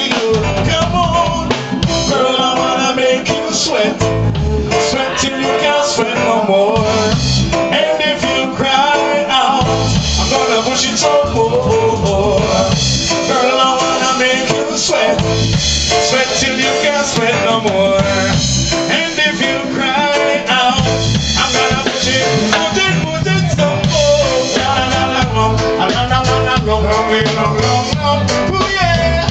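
Live band playing a song at full volume: drum kit keeping a steady beat under electric bass and keyboard.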